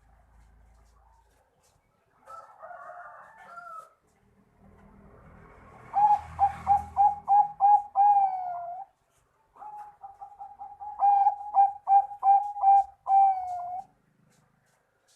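A Bangkok-type zebra dove (perkutut) singing two song phrases. Each is a quick series of short, clipped coos, about four a second, ending in a longer drawn-out note. A briefer, rougher call comes before the first phrase.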